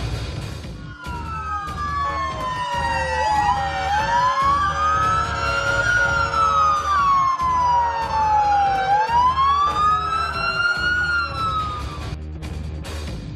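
Wailing siren, several tones sliding slowly down and back up twice, over a music track's steady beat. It starts about a second in and fades out near the end.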